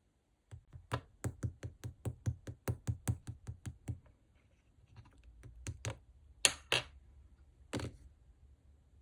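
Clear slime being pressed and poked, giving a quick run of sharp clicking pops, about five a second, that stops about four seconds in. After a softer crackle, three louder pops follow.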